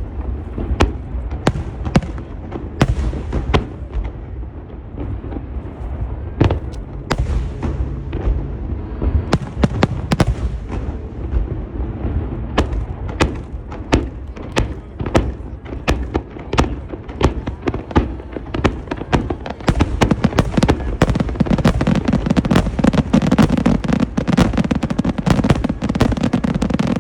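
Aerial fireworks shells bursting, each with a sharp bang over a low, rolling boom. About two-thirds of the way in, the bursts come thick and fast in a dense, rapid-fire barrage.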